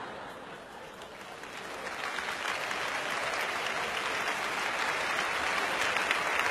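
Theatre audience applauding, the clapping building up over the first couple of seconds and then holding steady.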